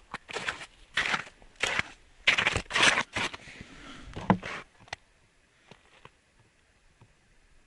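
Footsteps in rubber boots crunching on snow-covered ice, loud and close, about two steps a second. They stop about halfway through, leaving only a couple of faint crunches.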